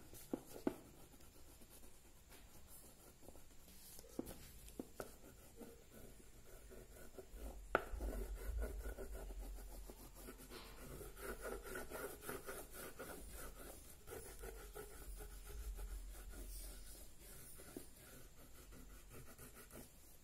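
Faint rubbing and scratching of a black oil pastel being worked across paper to colour in an area, with a few sharp taps in the first several seconds and a low rumble through the middle.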